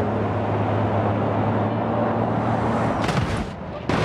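Truck engine running steadily with a low hum, stopping about three seconds in.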